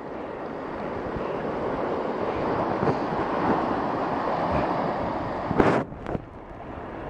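Steady rush of surf and flowing water with wind on the microphone. A short, harsh noise breaks through about five and a half seconds in.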